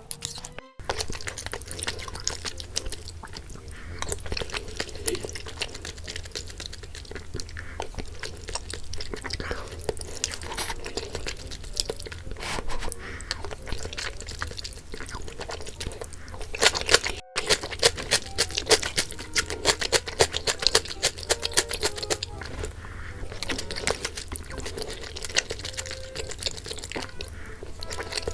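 Close-miked eating sounds: chewing of rice-cake dumpling soup and kimchi, with many short sharp clicks throughout.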